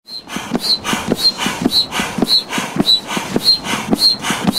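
Foot-operated bellows air pump being stepped on over and over, about two strokes a second. Each stroke is a wheezing rush of air with a short, high whistle.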